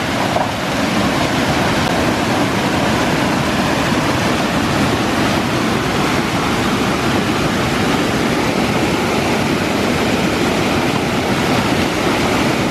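White water pouring over a concrete spillway, a loud steady rushing.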